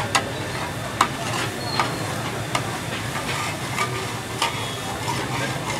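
Boneless chicken sizzling on a large flat metal tawa, a steady hiss, while a perforated metal spatula scrapes and taps across the hot plate, giving sharp clicks roughly every second.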